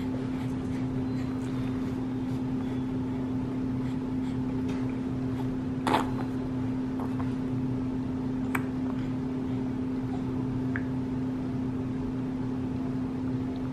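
A steady low mechanical hum, with one sharp click about six seconds in and a fainter tick a little later.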